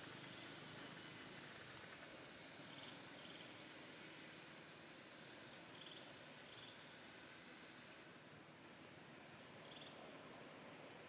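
Faint outdoor ambience of insects: a steady high-pitched drone with a few short high chirps now and then.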